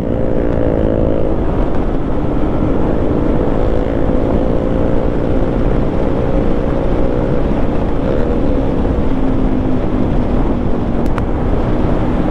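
Yamaha MT-15's single-cylinder engine through an Akrapovič exhaust, running at a steady cruising pace with an even, unchanging note, over a low rumble of wind and road noise.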